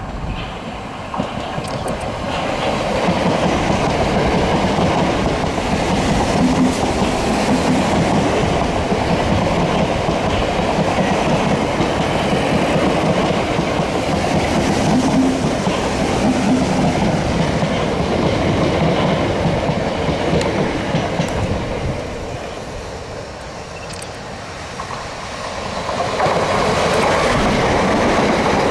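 A Gatwick Express Class 442 electric multiple unit passing at speed, a loud, steady rush of wheel and track noise that builds over the first few seconds. The noise eases off a little after 20 seconds, and near the end a second electric train, a Southern Class 377, swells up as it passes close by.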